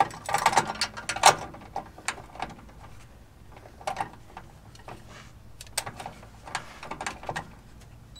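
Scattered light clicks and knocks of hand tools being handled and fitted up against a Jeep's underbody while a rivet nut is set up, with no power tool running.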